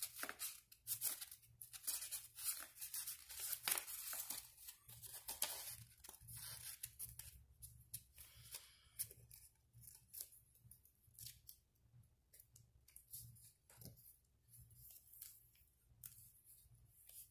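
Sheet of paper rustling and crinkling as it is rolled tightly around a wooden dowel by hand, with hands brushing over it. Soft, irregular rustles, busier in the first half and thinning out toward the end.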